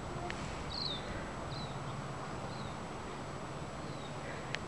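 Outdoor garden ambience with a steady low background hum, over which a small bird chirps faintly, short falling chirps every second or so. A light click sounds near the start and another near the end.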